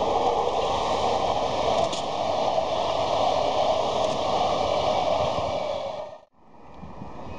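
Electric commuter train running past, a steady rushing noise of the train on the rails, which drops away abruptly about six seconds in and comes back fainter.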